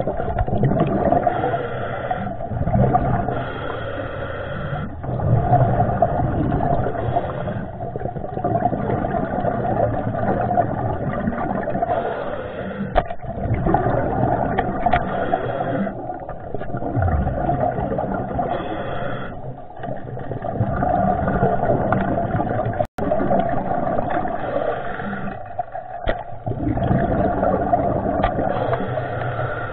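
Steady, muffled underwater rushing and rumbling, heard through an action camera's waterproof housing.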